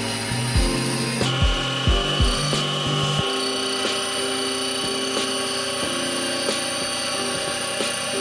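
Abrasive sanding drum spinning in a milling machine's spindle, grinding rust off a drill press casting with a steady hiss and a thin whine. Background music with a beat and bass line plays along, its beat dropping out about three seconds in.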